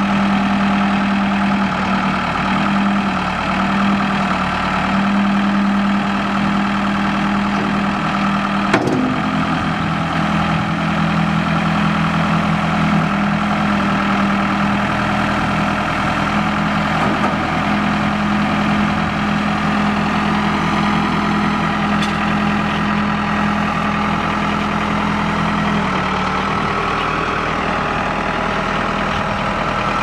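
Case 4T390 3.9-litre four-cylinder turbo diesel of a 1998 Case 580 Super L backhoe idling steadily, with a single sharp click about nine seconds in.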